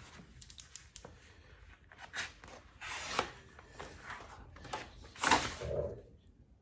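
Vinyl wrap film rustling and crackling as a scrap piece is handled, in several short bursts, the loudest about five seconds in.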